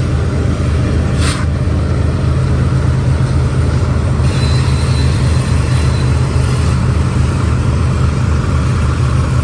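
BNSF double-stack freight train and its diesel locomotives rumbling low and steady as the train slows to tie down, with a brief hiss about a second in.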